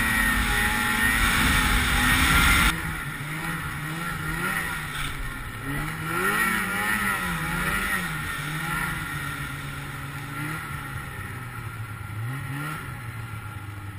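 Snowmobile engine running under way, its pitch rising and falling with the throttle. About three seconds in it abruptly becomes quieter and lower, then keeps wavering up and down with a short rise near the end.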